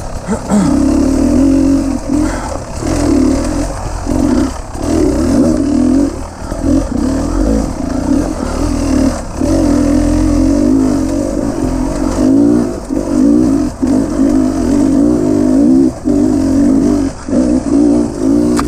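Dirt bike engine under load on a rough uphill trail, its pitch rising and falling as the throttle is rolled on and off, with short drops every second or two.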